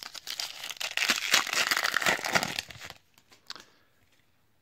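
Foil wrapper of a 2018 Topps WWE Women's Division trading card pack crinkling and tearing as it is opened, loudest between one and three seconds in, with one last short crinkle about half a second later.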